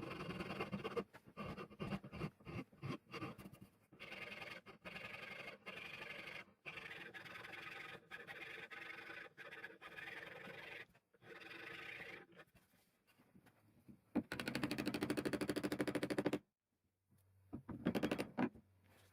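A workshop power tool running in short clips, the sound cutting off abruptly many times, with a louder stretch of fast rattling about two seconds long near the end.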